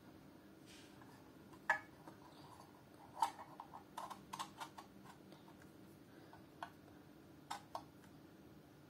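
Scattered sharp plastic clicks and taps from a BT-168 PRO battery tester being handled, its spring-loaded slider and case clacking: a single loud click under two seconds in, a quick run of clicks between about three and five seconds in, and a few more near the end.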